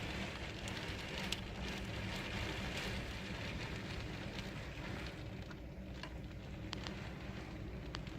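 Heavy typhoon rain pouring and driven by wind, an even hiss with a few sharp taps of drops striking a surface.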